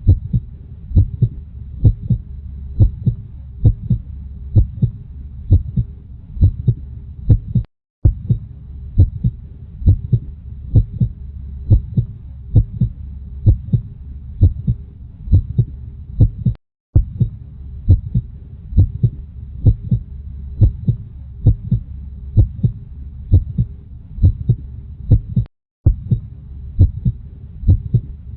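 Recorded human heartbeat beating steadily about once a second over a low steady rumble. The sound cuts out briefly about every nine seconds, then the beat resumes.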